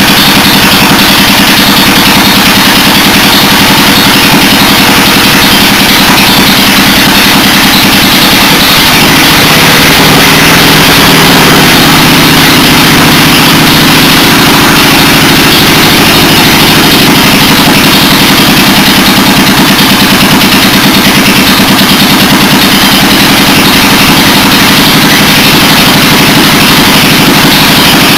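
Honda GV400 vertical-shaft engine running steadily and loud, just after a cold start.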